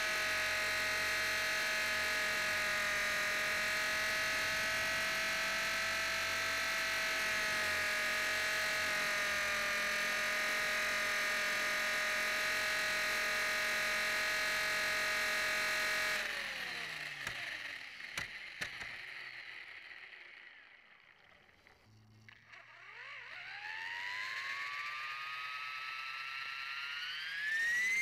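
Blade 450 X electric RC helicopter's motor and rotor whining steadily, heard from on board. About 16 seconds in, the whine winds down in pitch and fades almost to quiet, with a few clicks, then spools back up in a steadily rising whine.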